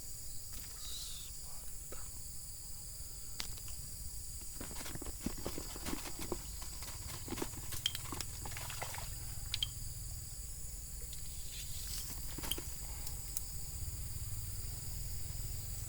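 Outdoor ambience with a steady high-pitched hiss of insects, under scattered light clicks and rustles that bunch together from about five to nine seconds in.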